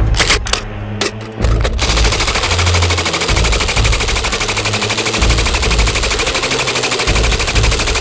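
RPD belt-fed light machine gun firing: a few separate shots in the first two seconds, then one long continuous burst of rapid automatic fire.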